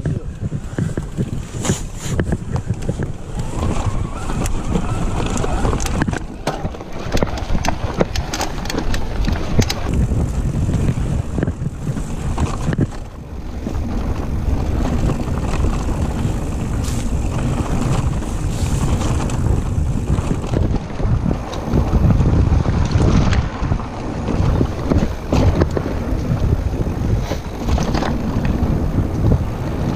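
Trek Powerfly FS 9 electric mountain bike riding over a rocky dirt trail: tyres crunching on stones and the bike rattling and knocking over bumps, under steady wind noise on the microphone.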